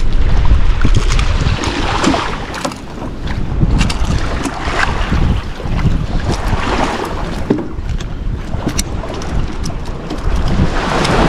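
Wind buffeting the microphone with a heavy rumble, over water washing and surging in swells every couple of seconds.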